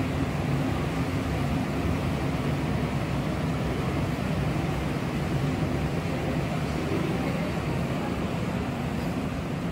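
Steady low background hum with an even noise over it, unchanging throughout.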